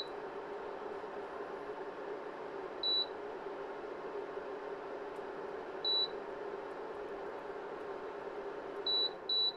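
Induction hob's touch controls beeping: short high beeps about every three seconds, then two quick beeps near the end, over a steady fan-like whir.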